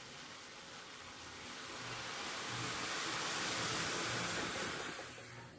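Hiss of milk coming to the boil in a steel pot on a gas burner, foaming up toward the rim. It swells from about a second and a half in and fades near the end.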